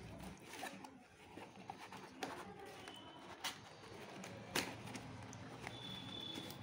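Cardboard shipping box being pulled and torn open by hand: faint rustling of the flaps with a few sharp crackles of the cardboard.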